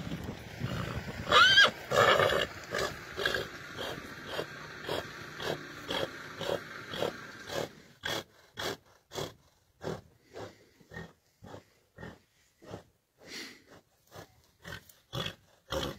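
Heavy draft horses sniffing each other: one call with a curving pitch about a second and a half in, typical of a horse's squeal or whinny, then short, evenly spaced horse sounds about two a second.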